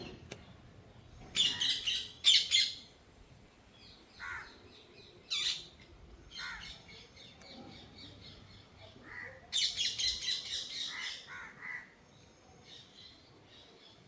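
Parrot squawking: harsh, rapidly pulsed screeching calls in bursts, loudest about a second in and again near the middle and two-thirds through, with a few shorter single calls in between.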